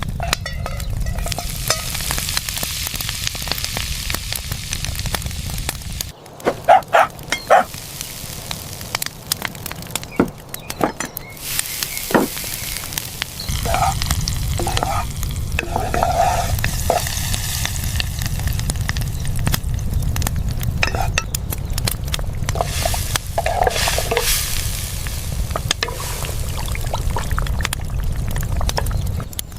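Food sizzling as it fries in a pan while being stirred. In the middle, the sizzle drops away for several seconds, and a few sharp knocks are heard before it picks up again.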